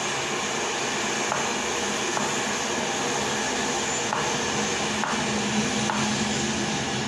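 Steady rushing kitchen noise with faint light taps about once a second, a knife cutting through plantain onto a board.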